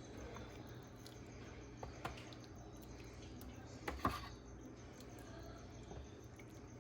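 A spoon moving sticky glaze over chicken in a pan, faint, with a light click about two seconds in and a louder one about four seconds in as the spoon knocks the pan.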